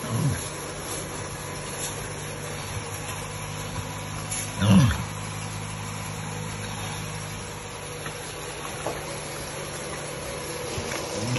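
Pigs grunting, one loud grunt about halfway through and shorter ones near the start and end, over a steady low hum.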